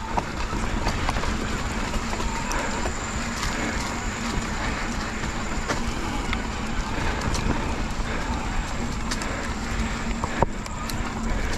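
Mountain bike rolling along a dirt forest trail: steady tyre and riding noise with wind on the camera microphone, scattered rattles and clicks from the bike, and one sharper knock about ten seconds in.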